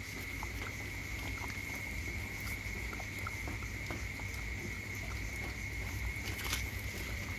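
A dog eating soft rice from a hand-held bowl: irregular small wet chewing and lapping clicks, over a steady high-pitched whine.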